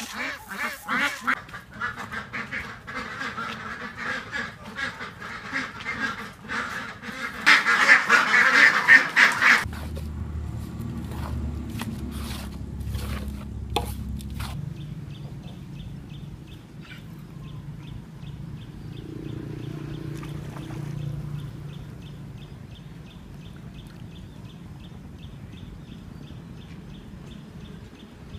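A flock of white domestic ducks quacking in a loud, dense chorus as feed is thrown to them, loudest shortly before it cuts off suddenly about ten seconds in. A quieter stretch follows, with a low hum and scattered clicks.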